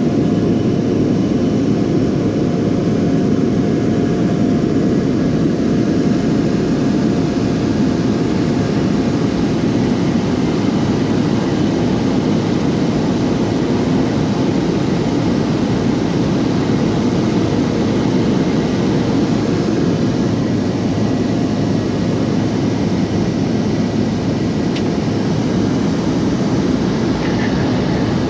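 Steady, unbroken engine and propeller drone of a small aircraft, heard from inside the cabin in flight.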